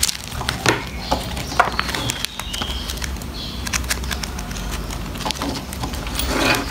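Clear plastic photocard sleeves crinkling and crackling as a stack of binder refill pages is handled and flexed, with a louder rustling swish near the end.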